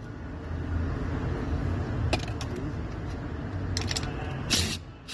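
Socket ratchet and hand tools working on the side-mirror mounting nuts inside the door frame: scattered metallic clicks and clinks, with a short ratcheting burst about four and a half seconds in, over a steady low rumble.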